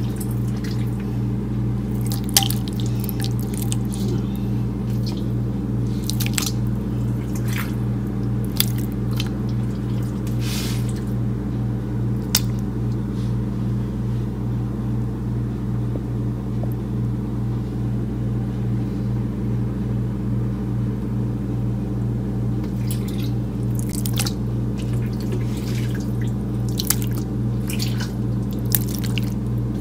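Raw pork chunks being put into a bowl of fish-sauce marinade: scattered short wet squelches and drips over a steady low hum.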